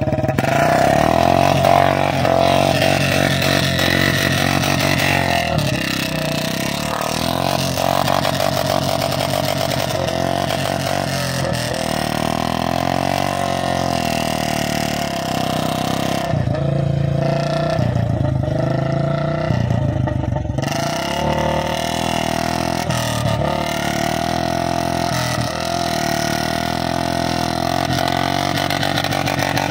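Royal Enfield Classic 350's single-cylinder engine revving up and down repeatedly as the bike is worked through wet mud. About two-thirds through, it drops to a lower, duller note for a few seconds before revving again.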